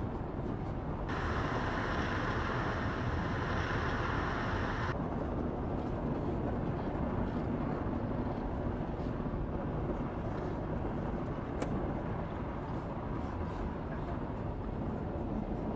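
Ford Transit minibus on the road: a steady low rumble of engine and road noise. A brighter hiss joins it from about one to five seconds in, then cuts off suddenly.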